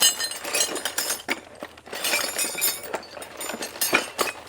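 Loose metal hardware (nuts, bolts and small parts) clinking and rattling as a hand rummages through a box of parts, with many sharp irregular clinks.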